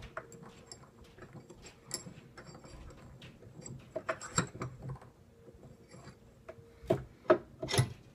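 Bench vise being worked to clamp a plastic tubing connector: small metallic clicks and rattles as the handle is turned, with a few louder knocks about four seconds in and again near the end. A faint steady hum runs underneath.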